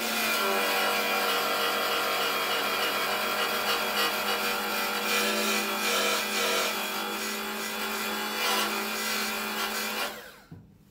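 Cordless grinder running at a steady speed against steel, grinding down thick old weld on a car's battery tray: a continuous high whine with a grinding rasp. It stops about ten seconds in and the motor winds down.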